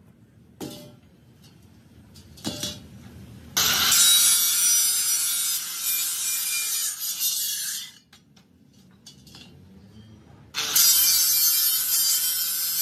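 Angle grinder with a cut-off disc cutting into a rolled steel band, a high-pitched grinding screech. It comes in two passes: the first starts about three and a half seconds in and stops about eight seconds in, and the second starts near eleven seconds. Before the first cut there are two knocks as the steel ring is handled.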